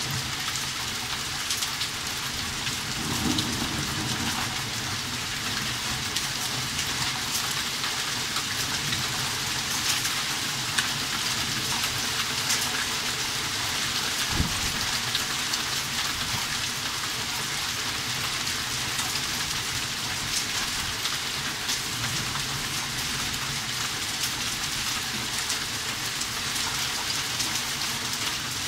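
Hailstorm: heavy rain and hail pelting a garden, a steady loud hiss dotted with many sharp ticks of stones striking. A low rumble of thunder comes about three seconds in.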